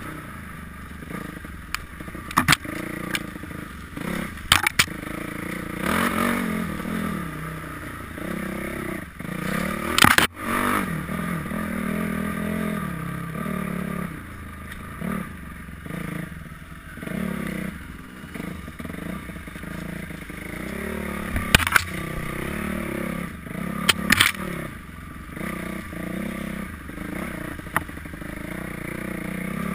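Dirt bike engine revving up and down as the rider rolls on and off the throttle, with several sharp knocks, the loudest about ten seconds in.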